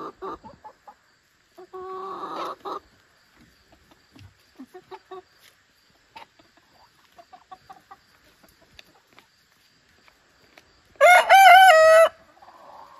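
A young rooster crowing once, a wavering crow about a second long near the end; he has only just begun to crow. Before it, chickens cluck and call quietly in short bursts.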